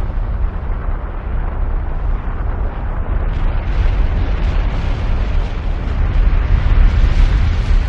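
Volcanic eruption sound effect: a loud, continuous deep rumble with a dense rushing noise over it, growing brighter and louder from about three seconds in.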